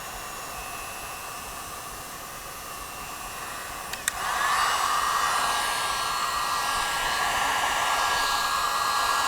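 Heat gun blowing steadily on low heat, warming an emblem's adhesive to soften it. About four seconds in there is a sharp click and the blowing becomes louder and stays louder.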